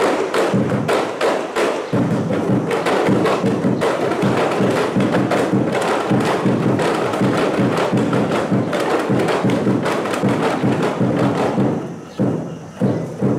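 Kompang ensemble, Malay hand-struck frame drums, playing a fast, dense beat of many rapid hand strikes.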